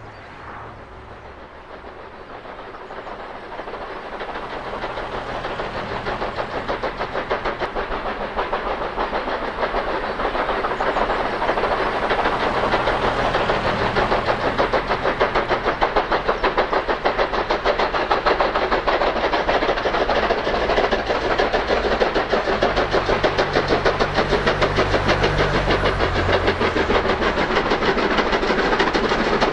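A pair of USATC S160 2-8-0 steam locomotives double-heading, working hard up a steep bank: a rapid, continuous chatter of exhaust beats that grows steadily louder over the first half as they approach, then holds loud and steady.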